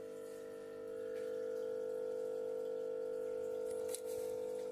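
A steady mechanical hum at one fixed pitch, like a small motor running, that dips briefly with a click about four seconds in.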